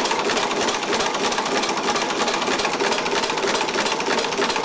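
Homemade two-stage compressed-air engine, converted from a two-stage air compressor, running steadily with a rapid, even clatter. The clatter comes from the heavy valve springs making the valves clatter against the cams.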